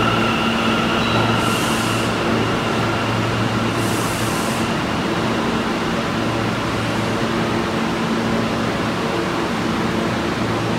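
An R179 subway train pulls away from the platform and rolls off into the tunnel. Its motor whine fades over the first few seconds, with two short hisses early on, leaving a steady low rumble and hum.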